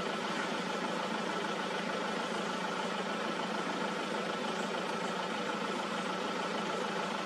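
A vehicle engine idling steadily, with an even hum that does not change.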